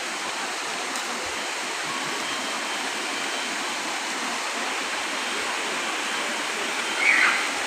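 Steady, even rush of a waterfall pouring into a pool, with a brief louder burst near the end.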